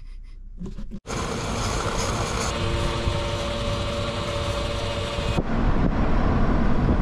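2000 Nissan Patrol 4x4 on the move: steady road and engine noise with a faint steady hum. About five seconds in it changes suddenly to a deeper rumble with wind on the microphone.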